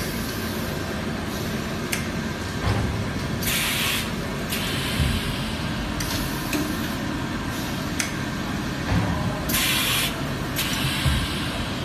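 Automatic high-frequency PVC welding machine running: a steady machine noise broken every few seconds by short hisses of air, typical of its pneumatic press cycling, with a few sharp clicks.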